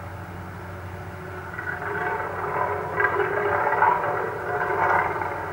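Vibratory plate compactor's small engine running steadily at working speed while tamping asphalt patching, growing louder through the middle of the stretch.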